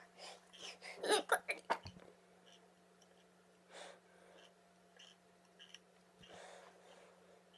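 A cluster of short, sharp body or mouth noises about a second in, then a few soft breaths, over a steady low hum.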